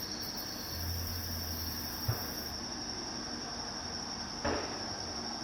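Crickets chirring in a steady, high-pitched chorus. A low hum sits under it for the first two seconds or so, and there are two soft knocks, one about two seconds in and one near the end.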